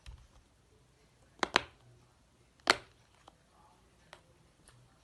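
A fidget toy being handled: a few sharp clicks or pops. Two come close together about a second and a half in, the loudest comes near the middle, and fainter ticks follow.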